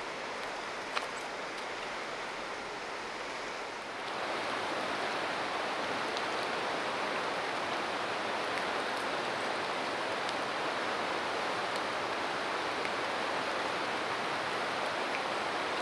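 Steady rush of flowing river water, louder from about four seconds in, with a short click about a second in.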